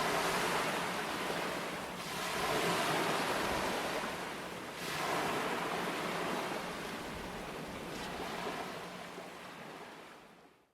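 Ocean waves breaking and washing onto the shore in a steady rush, with a new surge about two seconds in and another about five seconds in. The sound fades out near the end.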